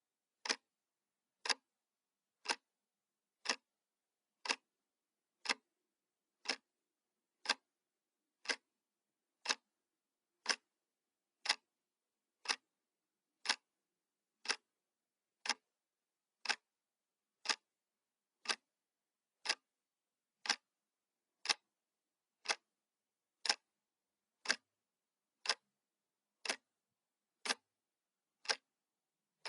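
Clock ticking sound effect: one sharp tick every second, evenly spaced, with silence between ticks.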